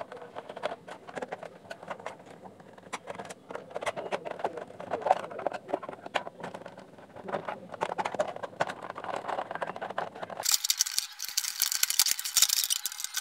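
Screwdriver turning screws out of a plastic radio case, with small clicks, ticks and rattles of handling. About ten seconds in it changes suddenly to a brighter, denser scraping rattle as the plastic back cover is pried loose and lifted off.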